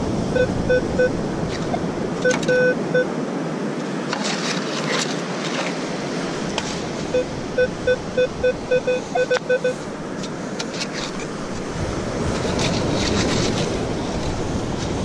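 Beach metal detector beeping short target tones over a buried target, three quick beeps, then three more, then a run of about ten in the middle, a solid, unbroken signal. Behind it a steady rush of surf and wind, with a few sharp clicks and scrapes.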